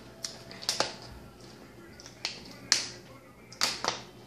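Thin plastic water bottle crackling in the hand, a series of sharp, irregular crinkles and clicks that come more often near the end.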